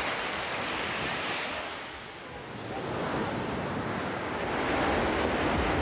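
Ocean surf washing: a steady rush of waves that dips about two seconds in and then swells again.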